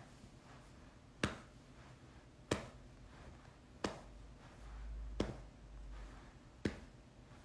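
A hand patting a pet's back and rump, a sharp pat about every second and a quarter.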